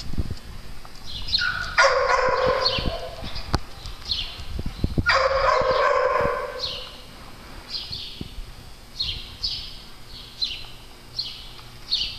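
Small dogs at play: a drawn-out dog cry, then a second one about three seconds later, over a string of short, high, falling chirps about twice a second and scattered light clicks.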